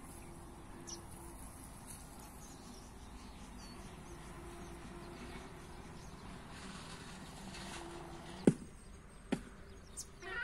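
Faint steady outdoor ambience with a low buzz that comes and goes, and two sharp clicks about a second apart near the end.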